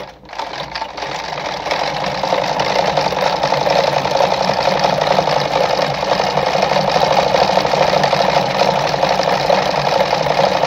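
Mercedes 340FB sewing machine running steadily, stitching a decorative pattern stitch, with a fast, even clatter. It picks up speed over the first couple of seconds, then holds a steady pace.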